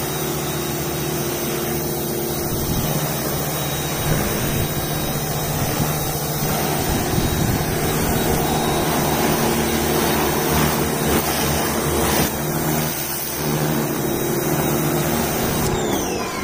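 Sun Joe electric pressure washer running under load, its motor and pump humming steadily while the water jet hisses against the car's paint and bumper. The spray cuts off at the very end and the motor starts to wind down with a falling whine.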